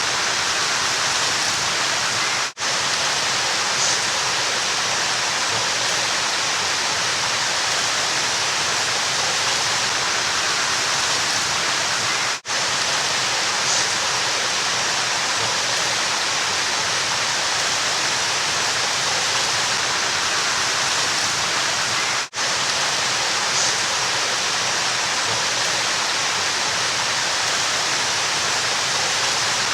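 Steady rushing of river water, an even hiss with no change in strength. It cuts out for an instant three times, about ten seconds apart, where the short recording loops.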